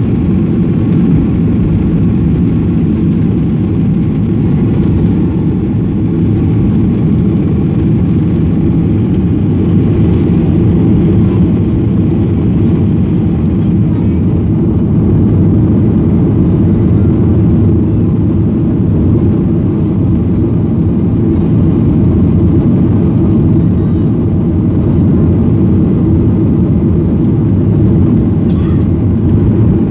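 Jet airliner's engines at takeoff power, heard from inside the passenger cabin as a loud, steady roar through the liftoff and initial climb.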